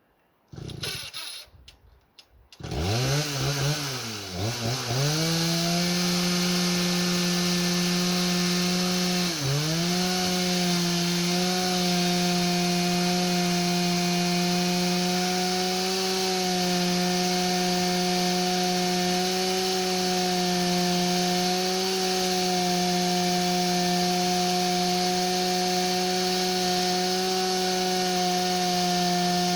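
Two-stroke chainsaw engine, a "4900" mounted on a homemade sawmill, started with a few short pulls, catching about two and a half seconds in, revving up and down and then held at steady high speed, with one brief dip about nine and a half seconds in.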